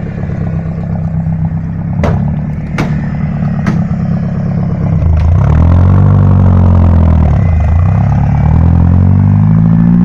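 Off-road vehicle's engine running close by, then revving up and down repeatedly and louder from about halfway as it works its way through the brush. Three sharp cracks sound about two to four seconds in.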